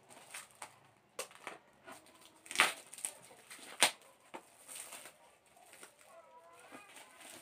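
Plastic wrapping on a parcel rustling and crinkling as it is slit and pulled open with a knife, with a few sharp crackles, the loudest about two and a half seconds in and again near four seconds.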